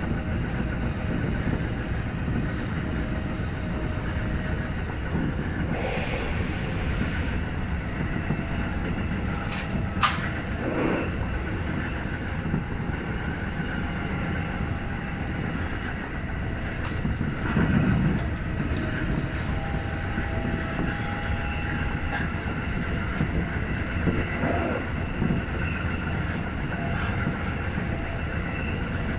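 Tokyo Metro Hibiya Line subway train running on open surface track, heard from inside the front car: a steady rumble of wheels on rail with occasional sharp clicks and a faint wheel squeal on the curves.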